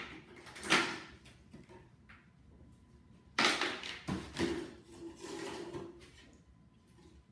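Boards of a wooden shipping crate's lid being pulled loose and lifted away: knocks and scraping of wood on wood, loudest just under a second in and again at about three and a half seconds, followed by a rougher stretch of rubbing and knocking.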